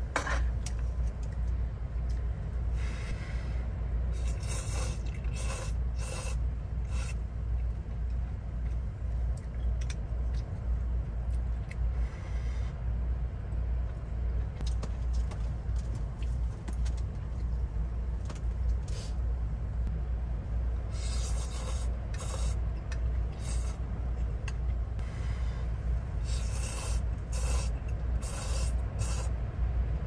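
Steady low rumble of wind and rain against a parked camper van, heard from inside the cabin. Short scraping, rubbing sounds come now and then over it.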